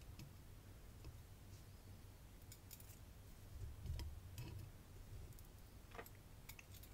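Near silence broken by a few faint, scattered small clicks of steel tweezers and tiny springs as the springs are pushed into the front part of a Bowley Rotasera lock.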